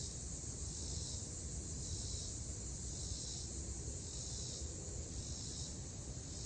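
Outdoor insect chorus, a high hiss that swells and fades about once a second, over a low rumble.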